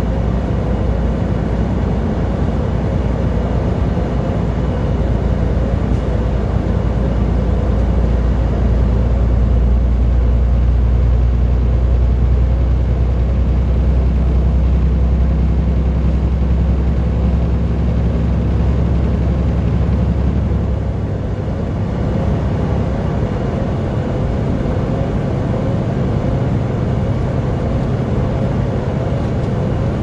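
Vehicle engine and road noise while driving on the highway, a steady deep drone. About two-thirds of the way through, the lowest part of the engine note drops away and the sound dips briefly, then carries on.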